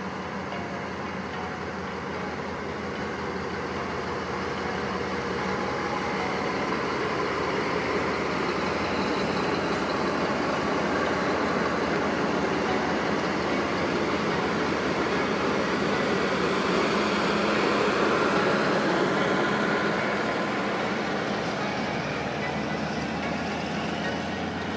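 Model train with a D19E diesel locomotive running past, a steady engine-like drone with a few constant low tones. It grows louder to a peak about three-quarters of the way through, then eases off.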